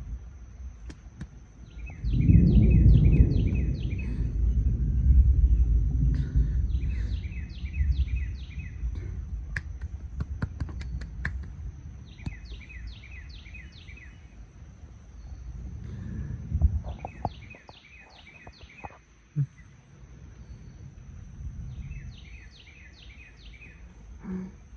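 Thunder rumbling: a deep peal starts suddenly about two seconds in, stays loud for several seconds and slowly dies away, with a second, weaker rumble later. A songbird repeats a short phrase of five or six quick chirps about every five seconds.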